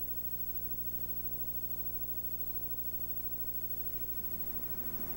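Steady electrical hum with quiet background music, unchanging throughout. Near the end a wash of outdoor noise fades in.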